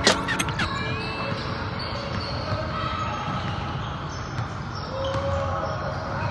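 Basketball game sounds in a gym: a ball bouncing on the court with voices in the hall.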